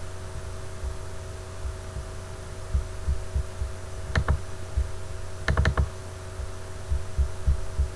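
Computer mouse clicks: a single click about four seconds in and a quick double click about a second later, over a steady electrical hum and occasional low thumps.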